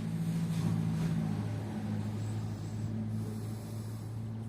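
Opel/Vauxhall car engine running at idle: a low, steady, even hum.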